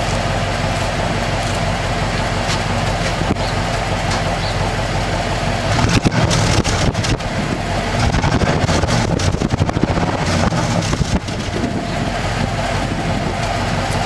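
1995 Cadillac Fleetwood's 5.7-litre V8 running at idle through new mufflers. It grows louder from about six to eleven seconds in, then settles back.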